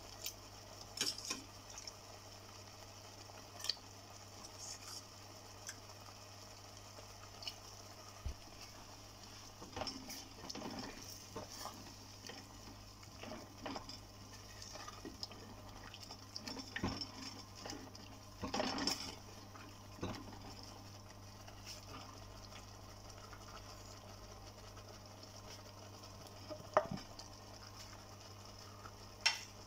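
Thick curry being stirred in a clay pot, with scattered scrapes and clicks of a spoon and wooden spatula against the pot over a faint simmer. Near the end, potato pieces are tipped in with a couple of sharp knocks. A steady low hum runs underneath.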